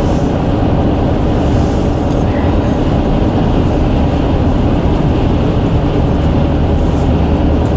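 Road bridge rumbling and vibrating under passing traffic: a loud, steady low rumble with a faint hum in it.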